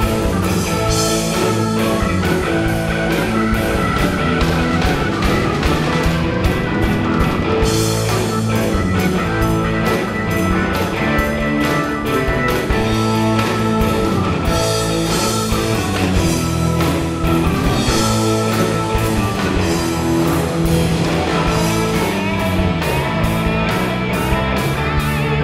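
Rock music with electric guitar over a drum kit keeping a steady beat.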